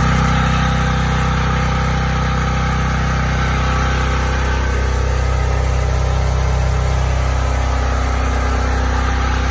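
Yellow dual-fuel portable generator's small engine running steadily at constant speed, heard up close inside its insulated wooden shed.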